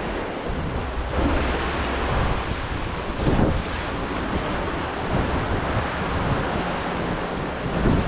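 Sea surf washing onto the beach, mixed with wind buffeting the microphone; a louder surge comes about three and a half seconds in.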